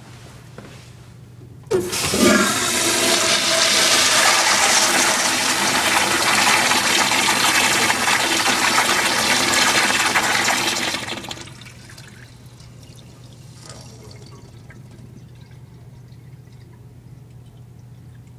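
Flushometer valve on a wall-hung American Standard Afwall toilet flushing: a sudden loud rush of water starts about two seconds in, runs steadily for about nine seconds, then tails off quickly to a faint background.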